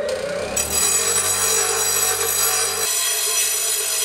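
Bench grinder running, with threaded steel studding pressed to the spinning wheel to grind a rounded point on its end. A harsh, hissing grind comes in over the motor's steady hum about half a second in and stops suddenly at the very end.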